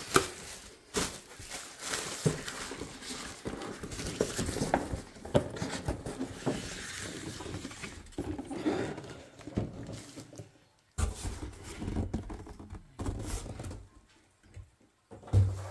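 Clear plastic air-pillow packing being pulled out of a cardboard box, crinkling and rustling in irregular handfuls. It is followed by a few dull thumps in the last few seconds.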